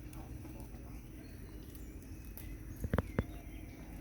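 A quick cluster of three or four sharp knocks about three seconds in, over a steady low background hum.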